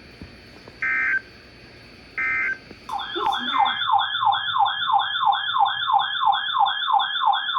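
Two short digital data bursts of Emergency Alert System code, the end-of-message signal after a weather radio warning, followed from about three seconds in by an electronic siren-style alert tone sweeping up and down about three times a second.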